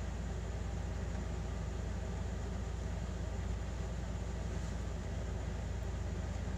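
Steady low hum under a constant even hiss: background room noise, with no distinct sound events.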